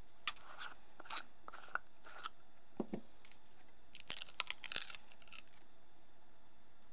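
Plastic screw lid of a jar of acrylic nail powder being twisted off with a few scraping strokes and a short squeak, then, about four seconds in, a quick run of sharp crackles as the printed seal is peeled off the jar's mouth.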